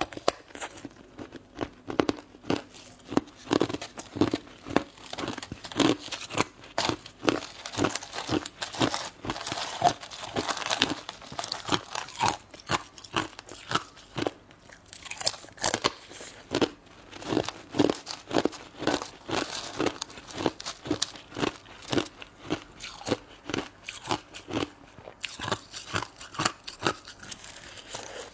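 Close-miked chewing of crunchy shaved ice: a rapid run of sharp crunches, about two or three a second, with a brief lull about halfway through.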